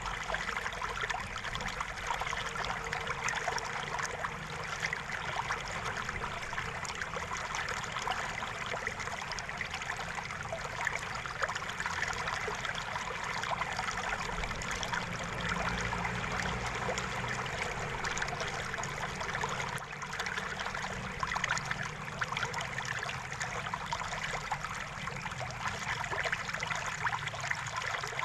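River water running over stones, a steady babbling flow with many small splashes and trickles.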